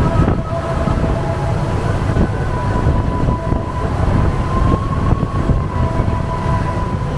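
Tour boat's engine running with a steady whine over a low rumble, with wind buffeting the microphone.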